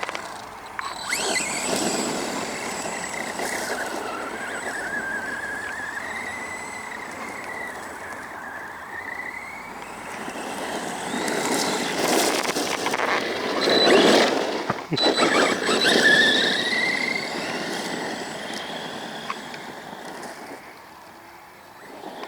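Arrma Granite BLX 3S RC monster truck driven in bursts, its brushless motor whining in pitch that rises and falls with speed. The noise swells loudest during hard acceleration around the middle.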